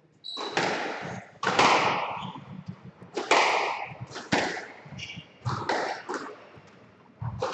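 Squash rally: the ball cracking off rackets and the court walls, a strike about every second, each echoing in the enclosed court.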